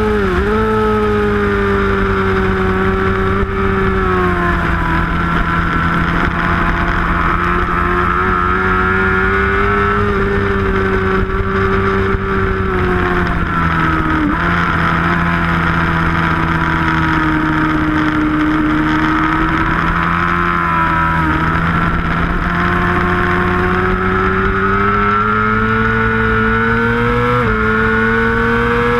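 Onboard sound of a 750 superbike engine at racing speed. The revs drop off the throttle at the start, rise and fall through the corners, then climb steadily under full throttle, with a gear change near the end.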